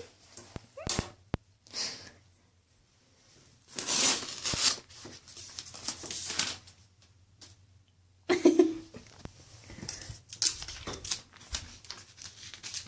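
Crinkling and rustling of a sticky lint-roller sheet stuck to a cat as it moves about, in several bursts separated by quiet pauses. A short voice-like sound comes about eight seconds in.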